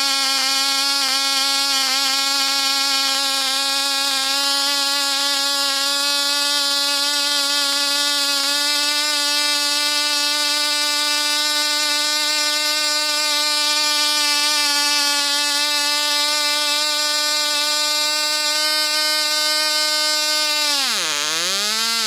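Cox Tee Dee .051 1/2A glow engine with a Cox 5x3 propeller running flat out at a steady high pitch, which steps up slightly about a third of the way through. Near the end the engine sags sharply, surges once and cuts out.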